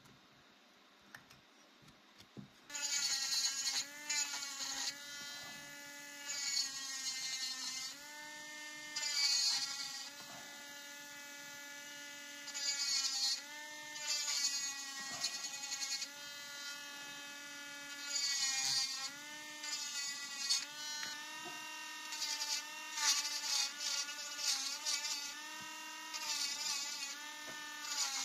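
Culiau rotary engraver pen starting up about three seconds in, then running with a steady whine whose pitch dips and recovers over and over as the fine bit cuts into a wooden knife handle. Repeated bursts of hissing grinding come as the bit engraves the wood.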